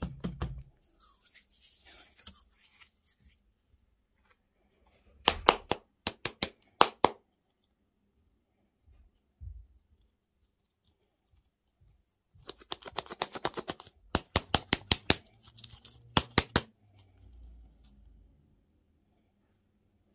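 Crinkling and crackling of a toy lollipop's printed plastic wrapper worked between fingers: a few quick clusters of sharp crackles about five to seven seconds in, then a longer run of rapid crackles from about twelve to sixteen seconds in, with quieter rustling between.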